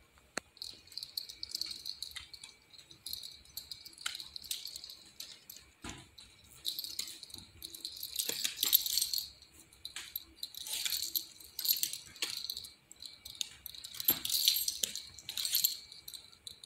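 A Chorkie's metal collar tags jingling in short, irregular bursts as the dog moves its head and body, with a few light clicks in between.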